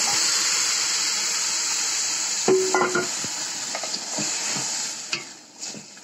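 Coconut milk poured into a steel pot of hot, oil-fried pulao rice, sizzling loudly as it hits the hot grains while a wooden spoon stirs. The sizzle dies down about five seconds in, leaving a few knocks and scrapes of the spoon against the pot.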